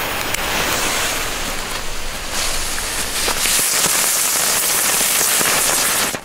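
Two small 'Wheel' ground-spinner fireworks hissing as they spin and spray sparks. The hiss grows louder about two seconds in and cuts off abruptly after about six seconds: a short burn.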